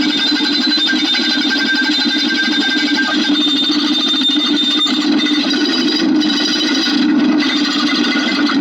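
Dense, rapid clicking running on without a break, merging into a buzzing texture, with a faint steady high tone.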